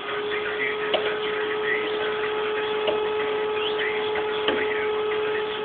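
Electric motor of a printing machine running with a steady hum, with a few light clicks.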